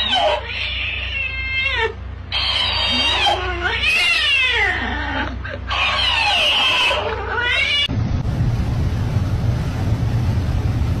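A cat meowing and yowling: a run of drawn-out calls that slide up and down in pitch. About eight seconds in, the calls stop and a steady rushing noise takes over.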